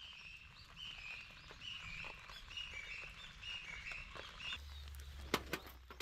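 A bird calling over and over, a short chirping note about once a second, against faint rain. Near the end a low hum starts and there are a few sharp clicks.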